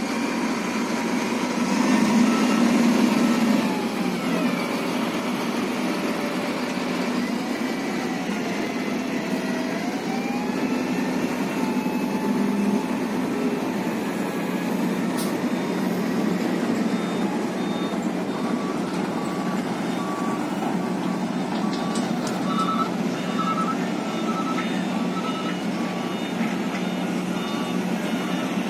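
Mitsubishi Fuso dump truck diesel engines running as the trucks manoeuvre, the engine note rising and falling in the first half. From about halfway on, a truck's reversing alarm beeps repeatedly.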